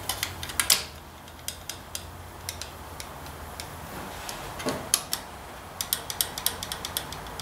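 Irregular small metal clicks and taps, about a dozen, as a long metal line is worked down into its loose-fitting hole on a Ford 800 tractor, with one duller knock about two-thirds of the way through.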